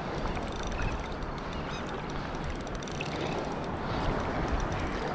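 Steady rush of wind on the microphone and shallow surf water washing around a wading angler, with faint scattered ticks throughout.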